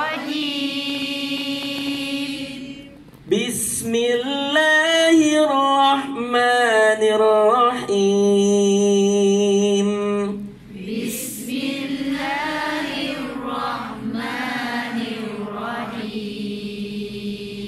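A man chanting Quranic recitation in taranum, the melodic Quran-reading style: long held notes and ornamented runs that rise and fall in pitch, with short breaks for breath about three seconds in and again near eleven seconds.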